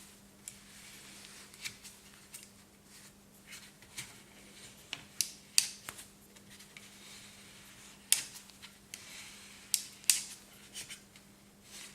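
Rottefella Move Switch ski binding's screw adjustment mechanism being worked by hand: irregular sharp clicks and short rasping scrapes, the loudest a little past halfway and near the end, over a faint steady hum.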